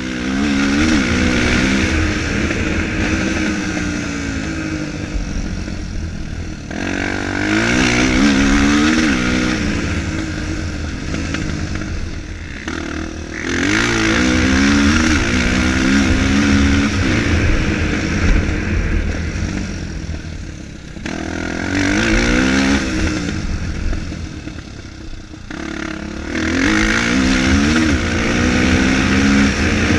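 Single-cylinder four-stroke dirt bike engines revving hard on a motocross track, the pitch climbing through the gears and dropping off in repeated waves about every six seconds as the bikes accelerate and pass.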